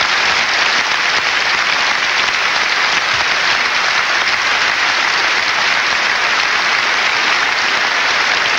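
A large crowd applauding steadily, with thick, unbroken clapping.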